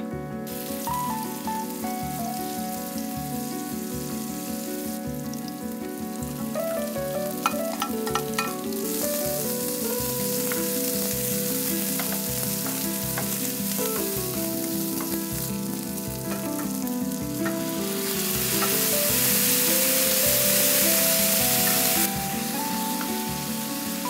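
Chopped green onions and sliced onions frying in hot meat fat in a nonstick frying pan, a steady sizzle as they are stirred with a wooden spatula. The sizzle starts just after the start, has a few sharp clicks about a third of the way in, and grows louder for a few seconds near the end before dropping back.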